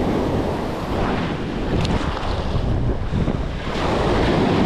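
Rough surf breaking and washing up the sand, with wind buffeting the microphone; the wash swells louder near the end.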